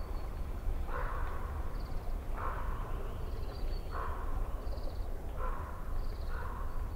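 A crow cawing five times, a harsh call about every second and a half. Faint high chirps of small birds sit behind it, over a steady low rumble.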